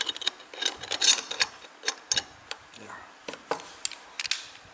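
Irregular small metallic clicks and rattles from a Smith & Wesson M29 CO2 air revolver's action as its cylinder is handled and turned by hand, with a few louder clicks among them.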